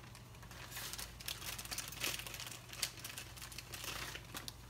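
Thin clear plastic bag crinkling as it is handled, a run of quick irregular crackles starting just under a second in.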